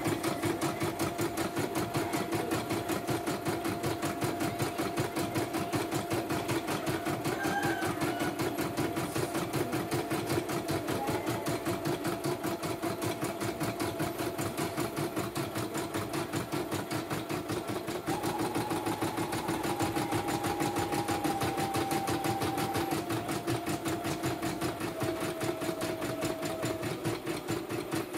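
YOKO computerized embroidery machine stitching a design, with a rapid, even needle rhythm over a steady motor hum. A faint higher whine steps up and down in pitch a few times in the second half.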